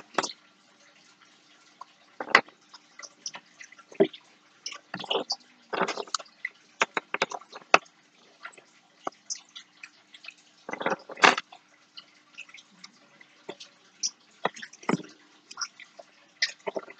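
Handling noises of thread being wound around a paper clip: irregular small clicks, taps and short rustles of fingers, thread and the metal clip against a plastic surface, with a few louder clusters about five and eleven seconds in.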